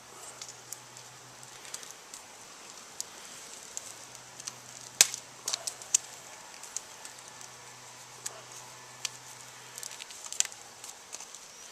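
Scattered small clicks and taps of hands handling wires, connectors and small parts during motorcycle wiring work, with one sharper click about five seconds in and a few more near the end. A faint low hum comes and goes underneath.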